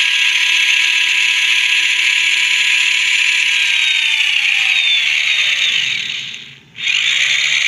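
Small electric motor of a USB mini turbo washing machine running with a steady whine and churning hiss. About six seconds in its pitch falls as it slows almost to a stop, then it speeds back up.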